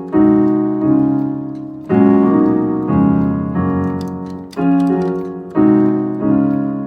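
Piano keyboard playing a simple funky chord progression in F sharp major: block chords struck about once a second, each ringing and fading before the next.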